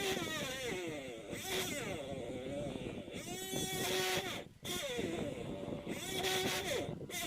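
Background music with a singing voice: a wavering melody that glides between notes and holds some of them. It cuts out briefly about four and a half seconds in.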